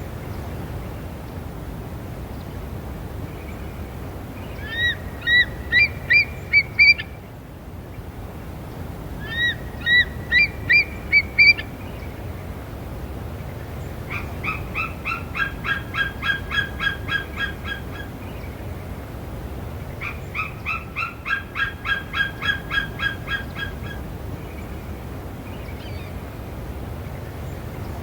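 Eagle calling: four series of short, high, sharp chirping notes. The first two series have about six notes each, one group about five seconds in and one about ten seconds in. The last two are faster runs of about a dozen notes each, around fourteen and twenty seconds in.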